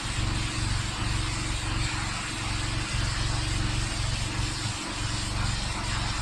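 Pressure washer running: a steady engine drone under the continuous hiss of the high-pressure spray.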